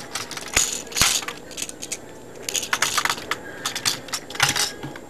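Plastic LEGO pieces clicking and clattering as the model is handled, in irregular clusters of small sharp clicks.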